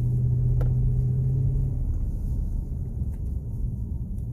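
Low road and drivetrain rumble inside the closed cab of a 2018 Chevy Silverado on the move, with a steady low hum for the first couple of seconds and a couple of faint clicks. There is no brake grinding or chatter.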